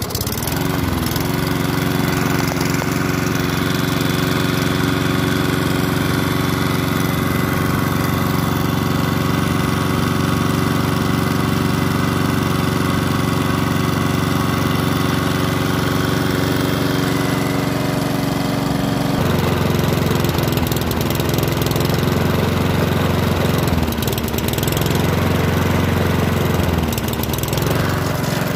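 Single-cylinder four-stroke lawnmower engine, run with sand mixed into its crankcase oil. It catches on a pull of the rope wound round the bare flywheel, rises to speed and runs steadily. In the last third its speed dips and recovers several times as it is put under load.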